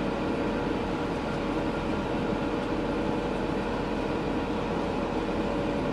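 A tractor and a carrot harvester running steadily while harvesting: an even, unbroken machinery drone with several constant tones.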